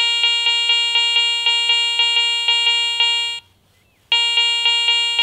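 Garrett ACE 400i metal detector with a Karma search coil sounding its target tone as a small silver coin is detected in an air test. The tone is steady and beeping, re-triggering about four times a second. It cuts out about three seconds in and sounds again about a second later.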